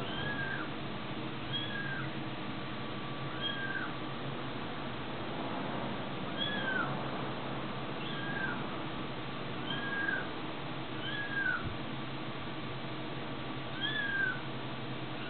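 A kitten mewing over and over: short high calls that rise and fall in pitch, one every second or two.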